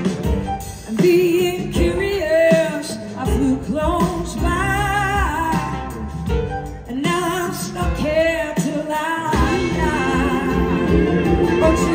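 Live band music with a woman singing lead, her held notes wavering with vibrato, over electric guitar and drums.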